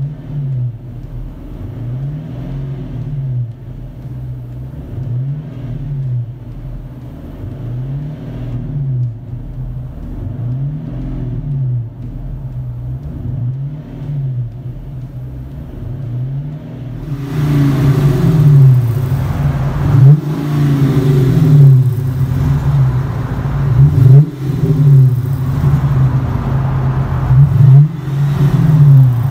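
2010 Dodge Challenger R/T's 5.7-litre Hemi V8 through a true dual exhaust with an X-pipe and Flo-Pro large-case stainless mufflers, revved up from idle and let fall back again and again, every two to three seconds. For roughly the first two-thirds it is heard from inside the cabin, mild and muffled; then it switches to outside at the tailpipes, much louder, with the revs coming quicker.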